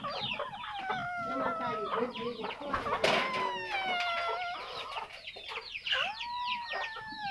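Chickens: a constant chorus of chicks' quick, high, falling peeps. Three long drawn-out crowing calls rise over it, in the first and second seconds, midway, and near the end.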